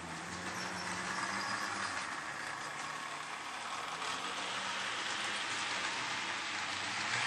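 OO gauge model two-car diesel multiple unit running along the track: a steady whirr of its motor with the wheels rolling on the rails.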